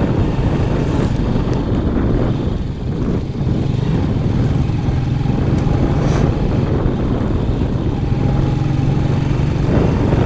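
Motorcycle engine running steadily under way, heard from the rider's seat, with a slight dip in loudness about three seconds in.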